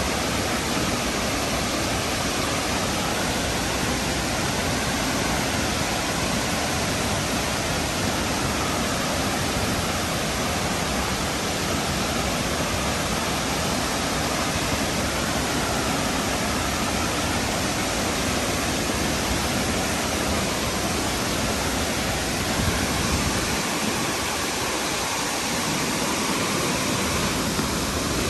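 A tall waterfall rushing steadily: a dense, even roar of falling water. The deepest part of the roar thins briefly near the end.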